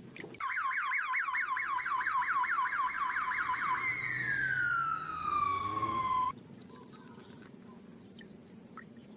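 Toy ambulance's electronic siren: a fast warble for about three and a half seconds, then one long falling tone that cuts off suddenly about six seconds in.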